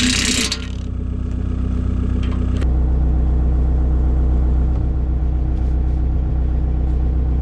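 Engine running steadily with a low hum. A loud hissing, rushing noise at the start dies away within about half a second, and the hum steps up louder about two and a half seconds in.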